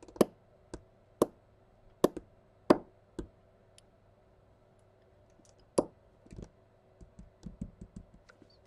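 Irregular sharp knocks and clicks of a small precision screwdriver and a metal enclosure being handled on a workbench. There are several louder knocks in the first three seconds and one near six seconds, then a run of lighter ticks.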